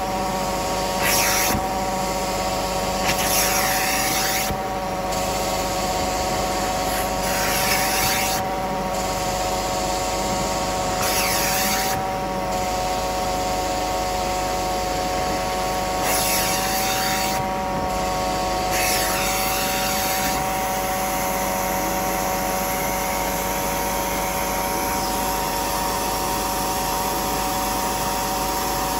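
Carpet-cleaning machine motor running with a steady whine, with a hissing swish every few seconds, about seven in all, that fades out in the last third.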